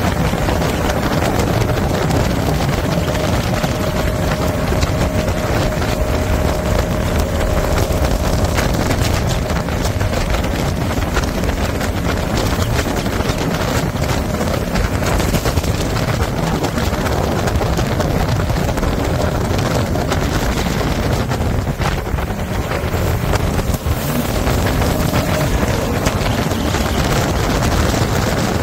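Jet boat running at speed up a river: steady engine and water-jet noise mixed with heavy wind buffeting on the microphone from the open boat.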